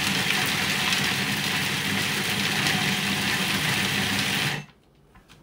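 Food processor with an S blade running steadily, grinding Medjool dates, almonds and seeds into a sticky mix. The motor cuts off suddenly about four and a half seconds in.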